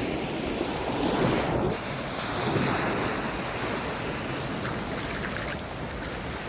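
Surf breaking and washing up on a sandy beach in a steady rush, swelling slightly about a second in, with wind buffeting the microphone.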